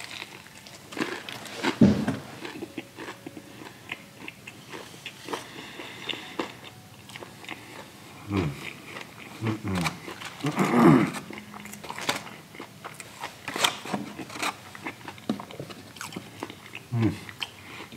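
A person biting into and chewing a biscuit filled with fried chicken, close to the microphone: crisp crunches of the breading and wet chewing all through, with a few brief vocal sounds from the mouth.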